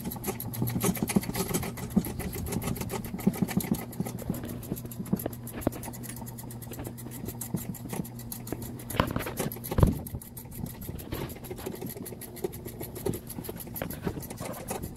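Hand work on a car's exhaust underneath the car: quick metal clicks and scrapes as the pipes and fasteners are fitted and tightened, over a steady low hum, with a single louder thump about ten seconds in.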